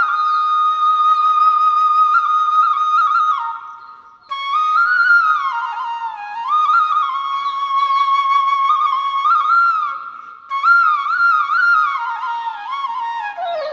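Flute playing a slow melody in three phrases with short pauses between them, the notes sliding into one another.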